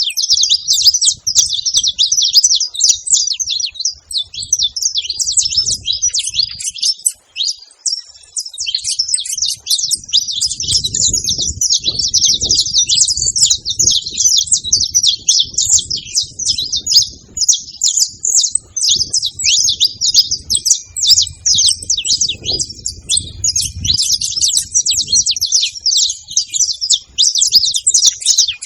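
A flock of saffron finches chirping and calling together, many short high notes overlapping in a dense, unbroken chatter.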